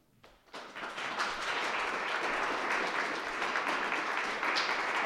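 Audience applauding. The clapping starts about half a second in, after the poem ends, and holds steady.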